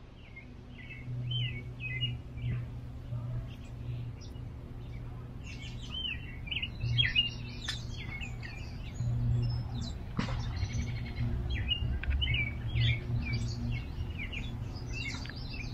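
Small songbirds chirping and calling in the trees, many short repeated notes, over a steady low hum. A single click sounds about ten seconds in.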